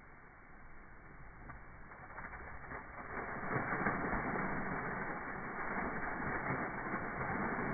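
Crystal Geyser, a cold-water carbon-dioxide-driven geyser, erupting from its rusted well pipe: water gushing and splashing. It starts quietly and gets louder about three seconds in as the spout rises.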